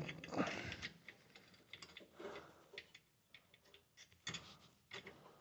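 Faint, irregular clicks and taps of a washing-machine drain pump's metal mounting clip being worked into place.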